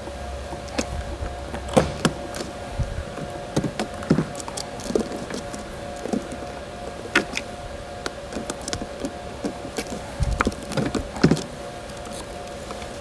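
Scattered plastic clicks and taps from a replacement keyboard being pressed and worked into a Panasonic Toughbook CF-30 laptop to seat its connection points, irregular, one to three a second, over a steady hum.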